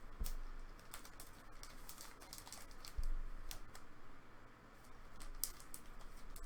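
Irregular light clicks and taps, with a soft low thump just after the start and another about three seconds in.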